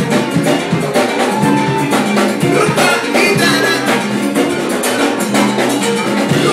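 Live samba band playing a Latin groove, with dense percussion driving the beat under pitched instruments.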